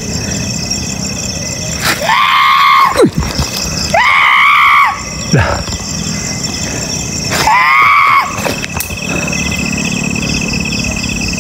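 Three loud, drawn-out shrieks, each rising then falling in pitch, over steady cricket chirping.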